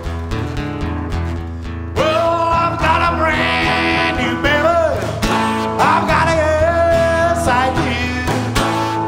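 Live acoustic band: two acoustic guitars strumming chords, and a man's singing voice comes in about two seconds in.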